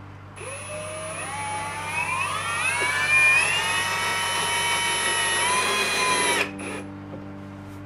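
Ryobi cordless drill/driver driving a screw through a soft pine drawer box: the motor whine climbs in pitch over about three seconds as the trigger is squeezed, holds steady, then cuts off suddenly about six seconds in, with a short blip just after.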